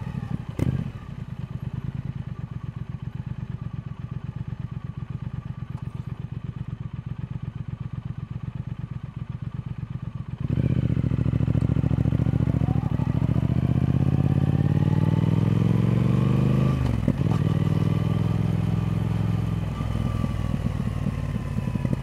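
Triumph Speed Twin's parallel-twin engine running at low revs with even firing pulses. About halfway through it jumps louder as the throttle opens and the revs climb steadily. There is a short break in the rise about three-quarters through, then the revs hold and ease off slightly near the end.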